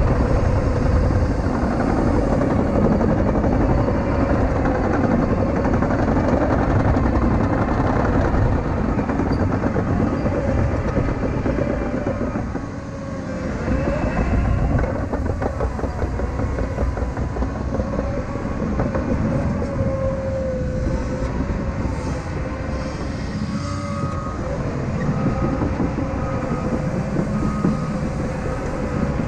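CAT 953K track loader working: its diesel engine running steadily with a wavering drone and the dense clatter of its steel tracks. The machine eases off briefly about twelve seconds in, then picks back up.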